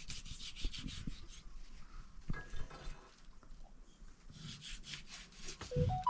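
Quick rhythmic rasping strokes, about eight a second, in two runs with a pause and a few knocks between them. A heavy low thump comes near the end.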